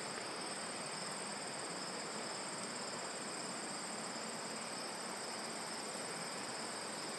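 Steady, high-pitched insect chorus: two continuous trills at different pitches over a faint hiss.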